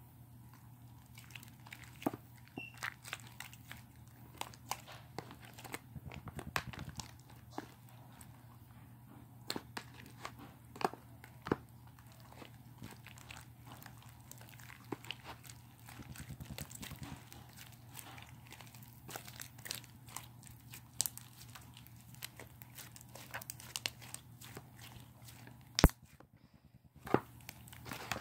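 Slime being squished and kneaded by hand, giving irregular sticky clicks and pops, with one sharp louder click near the end.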